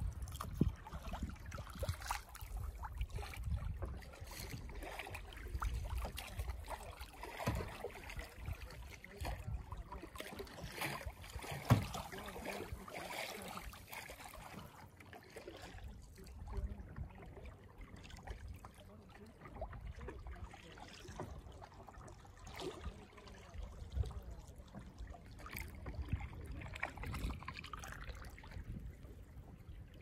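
Lake water lapping and trickling against a moving canoe, with irregular small splashes and a low rumble of wind on the microphone. One sharp knock about twelve seconds in.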